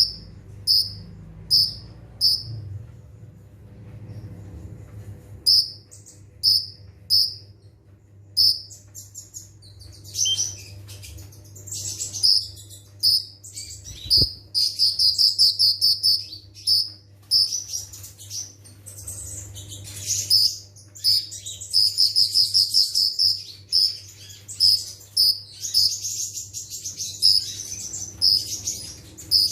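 Kolibri ninja sunbird calling: evenly spaced short, high chips at first, breaking into rapid trilled bursts of song about halfway through. This fast, dense delivery is the 'nembak rapat' song that keepers play to train their own birds.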